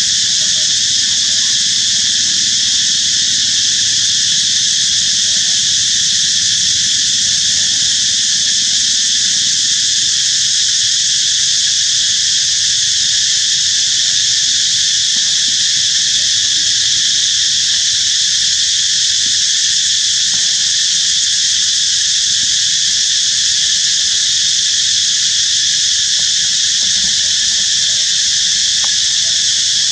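Loud, steady chorus of insects: an unbroken high-pitched buzzing hiss that does not change, over a faint low rumble.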